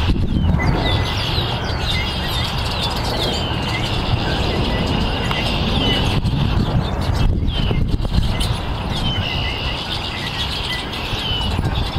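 European starling singing: a run of short falling whistles and chirps, several a second, over a steady low rumble.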